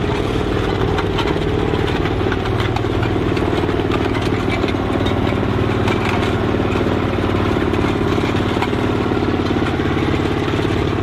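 Heavy tank engine running at a steady idle, a sound effect for the Panther tank's V-12 Maybach engine.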